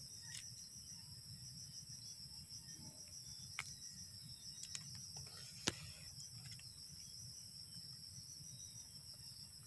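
Faint, steady chorus of insects such as crickets: a rapid pulsing trill and a thin, high, steady whine. A few faint clicks come through, the sharpest a little over halfway through, as soil, twigs and leaf litter are handled.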